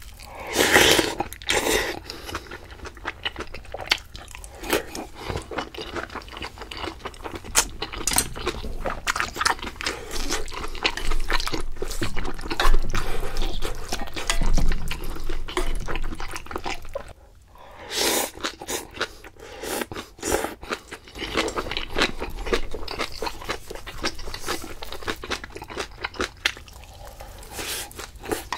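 Close-miked eating sounds: a person chewing and crunching food in a dense run of small clicks and bursts, with a short break about seventeen seconds in.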